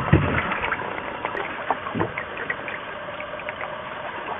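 Canoe being paddled: water trickling and lapping at the paddle and hull, with many small splashy ticks and a couple of soft thumps, about a tenth of a second and two seconds in.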